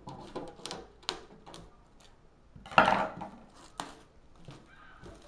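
A metal Yu-Gi-Oh collectible tin being handled and opened: a run of light clicks and knocks, with one louder clatter about three seconds in.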